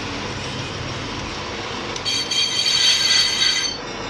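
Brake disc being turned on a brake-disc lathe: the machine runs steadily, then about two seconds in the cutting tool bites the disc with a loud, high-pitched metallic squeal lasting under two seconds before dropping back to the steady run.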